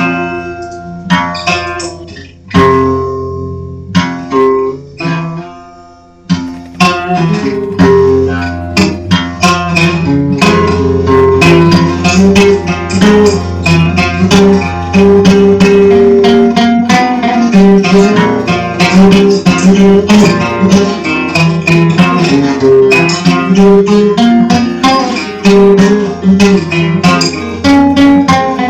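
Guitar-led dark folk music: a few sparse plucked notes, then from about six seconds in a steady run of fast picked notes over sustained lower tones.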